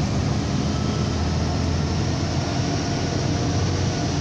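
Scania 113's six-cylinder diesel engine running steadily in third gear, holding the loaded truck back on a long steep downhill, heard as a steady low drone inside the cab.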